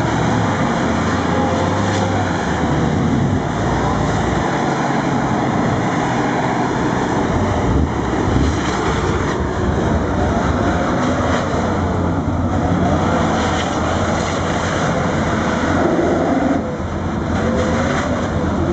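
Toyota Land Cruiser 100-series engine revving up and down under load as the SUV crawls and churns through deep mud, the wheels working for grip.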